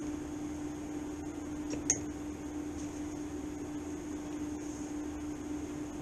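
Steady mechanical hum of a running machine, with one sharp click about two seconds in.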